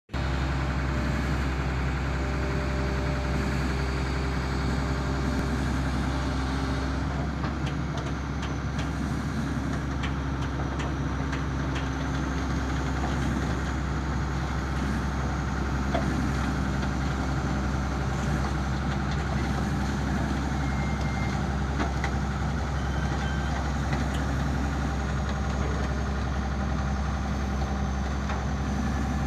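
Heavy diesel engine of a crawler excavator running at a steady idle while the machine works its arm, with a few light clicks about a third of the way in.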